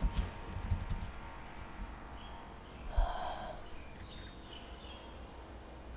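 A few sharp clicks of a computer mouse and keyboard in the first second, then a single short knock about three seconds in, over a steady low hiss.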